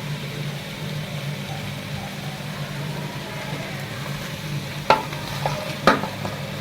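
Potatoes frying in a pan with a steady sizzle, and two sharp knocks of a utensil against the pan near the end.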